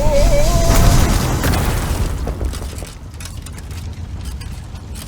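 A deep boom sound effect whose rumble fades away over about two to three seconds. A brief wavering whistle-like tone sounds at the start, and scattered light clicks follow once the rumble dies down.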